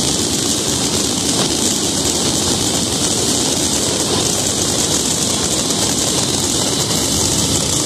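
Fireworks barrage: many shells bursting in quick succession, blurring with crackle into one steady roar.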